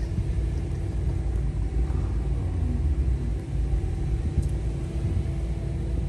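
Strong wind buffeting the microphone in a heavy low rumble, over a car engine running steadily as an SUV sits stranded in deep snow.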